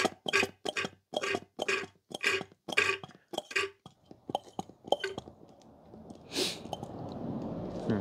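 Hand siphon pump being worked in rapid strokes, about three a second, slowing and stopping about five seconds in, as it sucks mostly air from the car's cooling system because the coolant level is out of the hose's reach. A short noise follows near the end.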